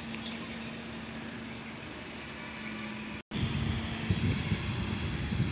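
A steady engine hum with outdoor noise. It drops out for an instant about three seconds in, then comes back with a louder, uneven low rumble.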